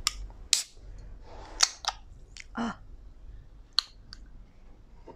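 Aluminium can of diet cola being handled and its pull tab worked open: a string of sharp clicks and taps, with a duller knock a little after two and a half seconds in.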